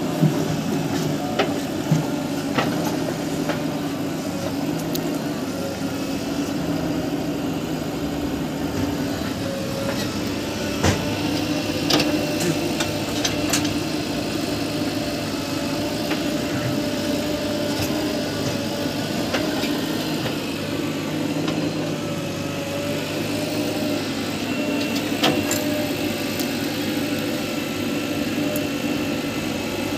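Diesel engine of a JCB 3DX backhoe loader running steadily as it digs and loads soil into a tractor trolley, with a few brief sharp knocks near the start and around the middle.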